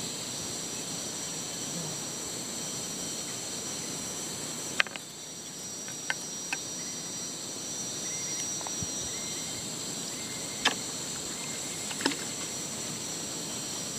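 A steady, high-pitched chorus of insects droning without a break, with five or so sharp clicks scattered through it.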